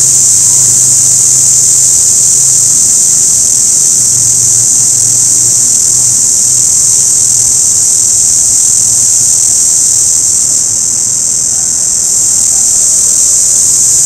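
Orange cicada singing: a loud, continuous high-pitched buzz that dips slightly about ten seconds in, then returns.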